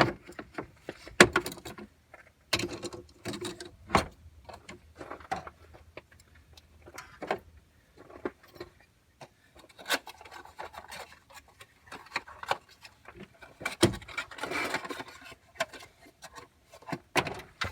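Hand tools (ratchet, extension, sockets) being picked up and put away: a string of irregular clinks and knocks, with some rustling near the end.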